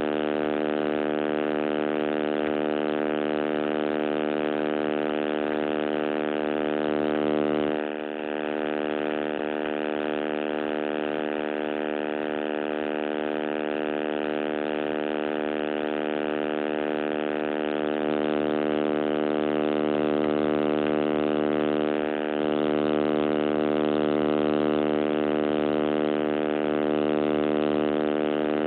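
Loud, steady buzz from a damaged phone microphone: one fixed-pitch drone with many overtones that masks the recording, dipping briefly about eight seconds in and again near twenty-two seconds.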